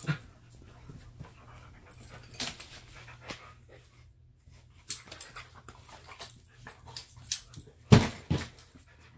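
Airedale Terrier puppy and adult Airedale play-wrestling on a dog bed: scattered scuffling, rustling and small clicks, with a loud bump about eight seconds in.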